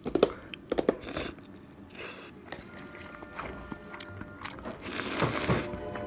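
Someone eating thick jjajang cup noodles with chopsticks: sharp clicks and bites in the first second, then a noisy slurp of noodles about five seconds in, over background music.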